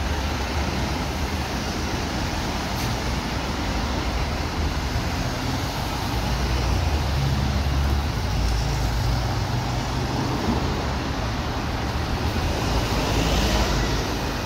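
Diesel engine of a turntable ladder fire engine running as the truck reverses slowly into its station bay. It is a steady low rumble that swells for a couple of seconds around the middle and again near the end.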